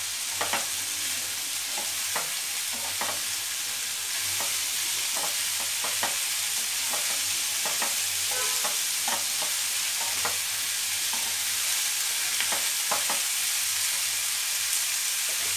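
Mushrooms and chopped vegetables sizzling in a nonstick frying pan over a high flame while a wooden spatula stirs them, scraping and knocking against the pan at irregular moments over a steady frying hiss.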